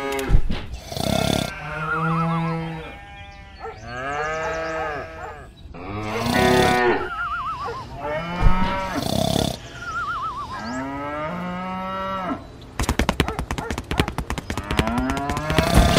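Cattle mooing: a series of calls, a few noisy bursts between them. From about thirteen seconds in, a fast, even rattling joins in.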